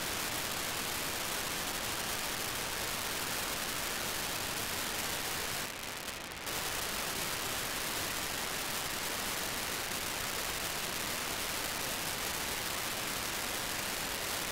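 Steady hiss of an FM receiver with its squelch open, from an RTL-SDR dongle tuned to the BlueWalker-3 satellite's 437.5 MHz downlink. About six seconds in, the hiss drops for under a second as a short FSK 2400 data burst from the satellite quiets it.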